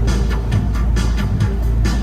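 Electronic dance music with a steady beat, over a constant low rumble.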